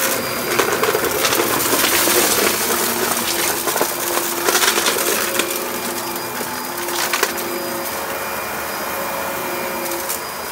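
Dyson upright vacuum cleaner running over carpet and sucking up scattered crumbly debris, which crackles and rattles as it is drawn through the cleaner head into the cyclone. The crackling is busiest in the first half and thins out later, with a steady motor hum underneath.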